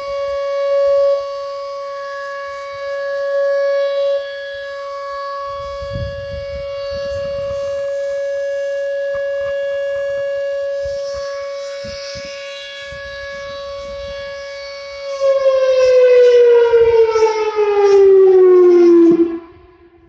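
Whelen Vortex R4 rotating outdoor warning siren sounding a steady tornado-alert tone, swelling and fading as the horn turns. About three-quarters of the way through it gets louder and its pitch falls steadily as it winds down, stopping just before the end.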